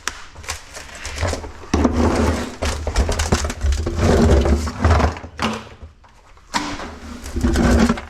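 Scrap metal being handled and shifted: irregular clattering, scraping and knocks, with a low rumble underneath.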